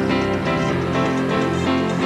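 Background music: instrumental track with plucked guitar-like notes over a steady beat.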